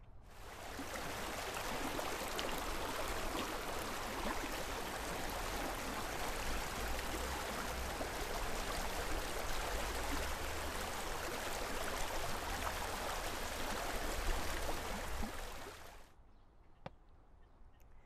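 San Antonio River water rushing over shallow rocky rapids: a steady, even rush of flowing water that fades out about sixteen seconds in.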